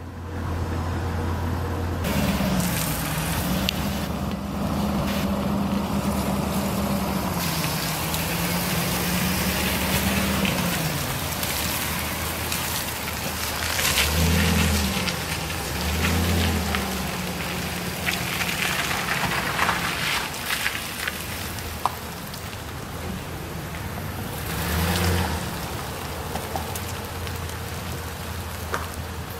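The 2001 Chevrolet Silverado 2500's 6.0L V8 gas engine running, its speed rising and falling briefly a few times in the second half.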